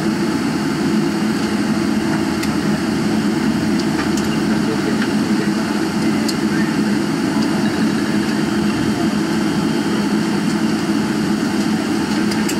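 Steady cabin noise inside a Boeing 777-300 on the ground: the jet engines running at idle together with the air-conditioning hum. A few faint clicks are scattered through it.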